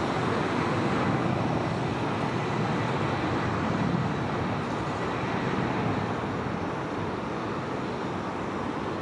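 Embraer 190 airliner's twin GE CF34 turbofans at takeoff power during the takeoff roll: a steady, broad jet rumble that eases slightly over the last few seconds.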